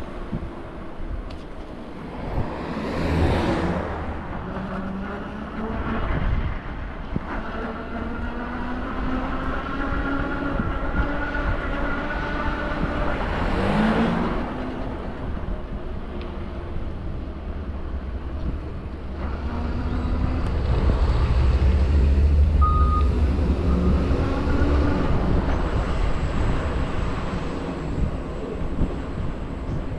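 City street traffic: motor vehicles passing over a steady low rumble, with engine tones rising and falling. A passing vehicle swells up a few seconds in and again about halfway through, and the rumble grows louder for several seconds near two-thirds of the way.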